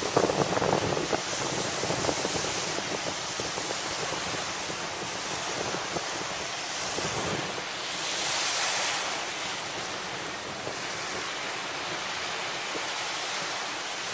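Surf washing on a sandy shore, with wind buffeting the microphone, strongest at the start. A wash swells louder about eight seconds in.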